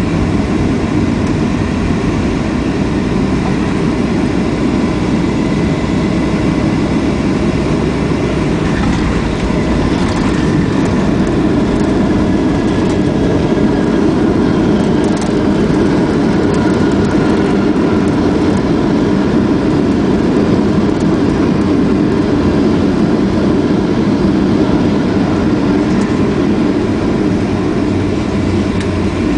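Steady jet engine and airflow noise of an airliner, heard from inside the passenger cabin during landing, with a slight swell in the middle.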